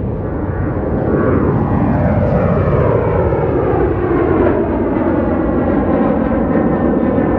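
Boeing 737 jetliner departing under takeoff power, its jet engine noise growing louder as it climbs past. Whining tones slide down in pitch as it goes by.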